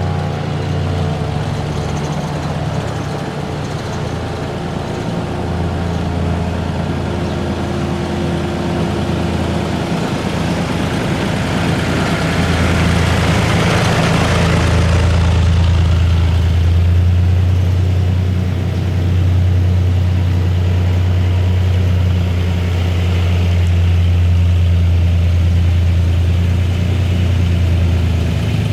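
A vehicle engine idling with a steady low hum. Around the middle a broad rush of noise swells and then fades. Faint steady tones in the first few seconds die away.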